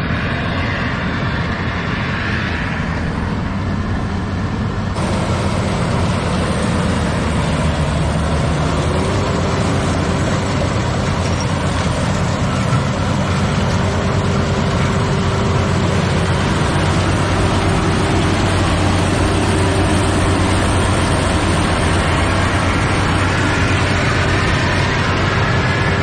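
Rice combine harvester running steadily as it cuts and threshes ripe paddy: a constant engine drone with machinery noise, and a faint steady higher tone for a while partway through.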